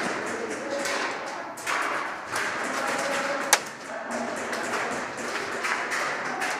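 Busy indoor airsoft-game noise: scattered taps and knocks of movement and gear, with one sharp crack about three and a half seconds in.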